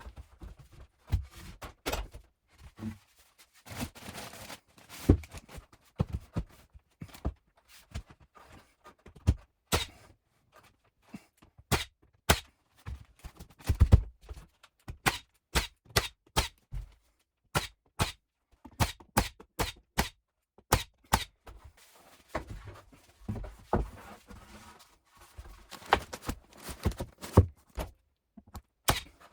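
Carpentry knocks and taps while pine shiplap ceiling boards are worked: many sharp wooden thunks and clicks at irregular spacing, some loud and some faint.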